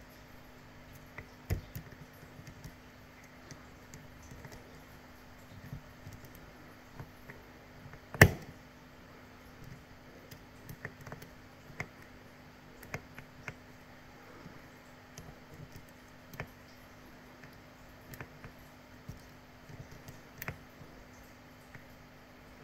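Small metal clicks and ticks of a lock pick and tensioner working inside a Laperche Rols lock during picking, irregular and light, with one much louder click about eight seconds in.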